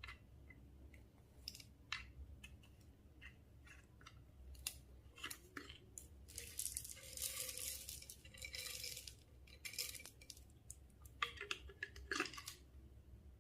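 Slime being handled and mixed: scattered sticky clicks and pops, with a longer stretch of dense crackling squelch in the middle and another burst of crackles near the end.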